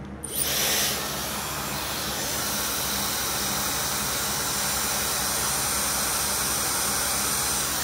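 Dyson Supersonic hair dryer with its diffuser attachment fitted, switched on just after the start: louder for the first half-second, then a steady rush of blown air.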